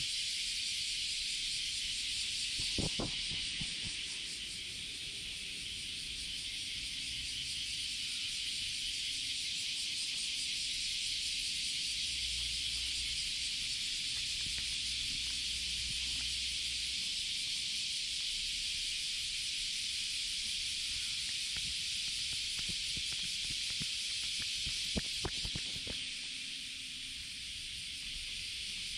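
A steady, high-pitched chorus of insects that does not let up, with a couple of soft knocks about three seconds in and again near the end.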